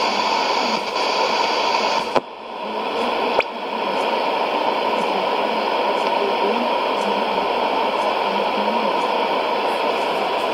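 Shortwave AM reception on a Sony ICF-2001D receiver at 6100 kHz: steady static hiss with a steady whistle-like tone and a weak signal buried in the noise. About two seconds in there is a click, the hiss drops away for about a second, and a second click brings it back, as the receiver is retuned from 6100.0 to 6100.2 kHz.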